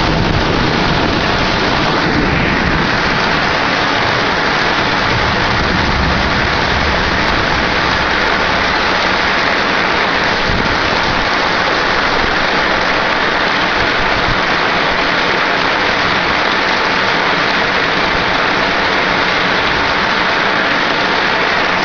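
Heavy thunderstorm downpour: dense rain pouring down steadily and evenly, with no break.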